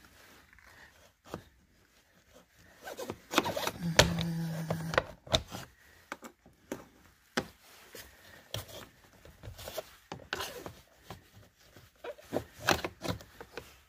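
Flathead screwdriver scraping and clicking against the plastic door-sill trim of a Ford Explorer as the trim is pried straight up, heard as a run of irregular sharp clicks and scrapes. A brief low hum comes about four seconds in.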